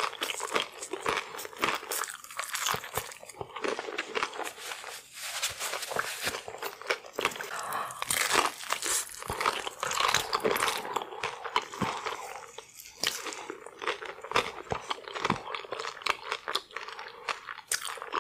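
Close-up crunching and chewing of deep-fried, breaded king crab legs: a steady run of crisp, crackly bites and chews.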